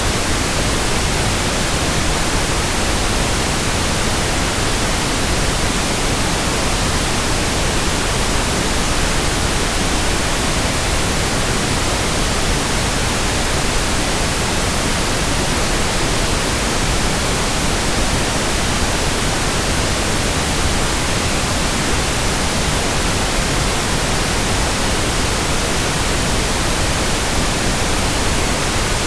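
Steady pink noise: an even, unbroken hiss that does not change.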